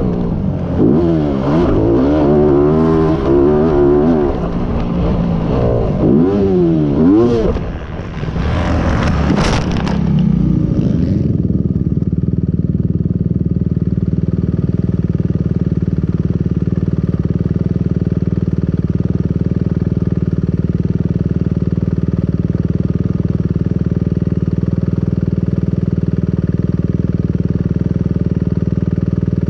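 Motocross dirt bike engine revving up and down under riding, with a scraping clatter about eight to ten seconds in; the engine then settles into a steady idle for the rest of the time.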